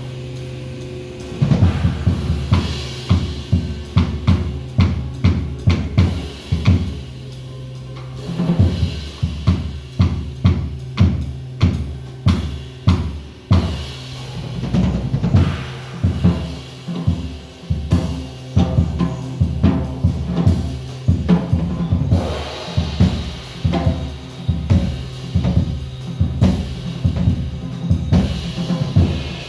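Music led by a drum kit playing a steady beat of kick, snare and cymbals over held bass notes, with short breaks in the beat.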